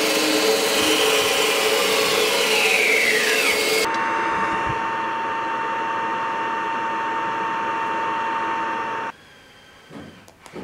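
Metal-cutting bandsaw running and cutting through a pommel block, with a whine that slides down in pitch; about four seconds in it changes to a steadier machine run with one fixed whine, which cuts off abruptly about nine seconds in. Faint scratching of a scribe marking the block follows near the end.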